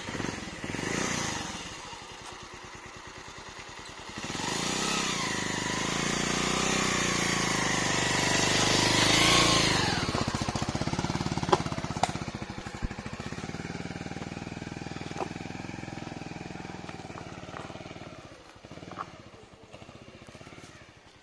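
Motorcycle engine revving as it is ridden up a steep, rocky trail. It swells about four seconds in, climbs in pitch, drops suddenly about ten seconds in, then runs on more quietly and fades away near the end.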